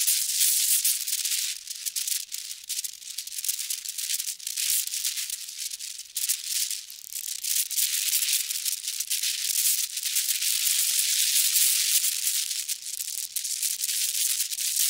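Wind blowing over the camera's microphone: a high, grainy hiss that swells and fades in gusts. It dips for a couple of seconds around the middle, then builds strongly again.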